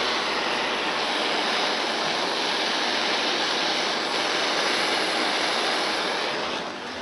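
Gas torch flame hissing steadily while heating the welded seams of a steel windscreen frame for tin/lead body filling; it dies down near the end.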